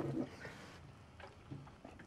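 A man gagging and retching in short, muffled bursts as he forces down a blended sushi, wasabi and soy sauce drink.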